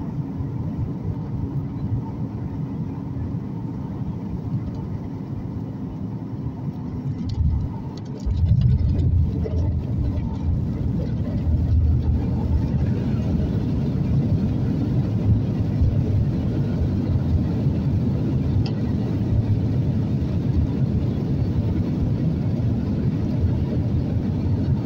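Cabin noise of a Boeing 737 MAX 9 on final approach, a steady rush of air and engine sound. About eight seconds in there are a few clicks, and the sound steps up suddenly to a louder, deeper rumble, typical of the main wheels touching down and the jet rolling out on the runway.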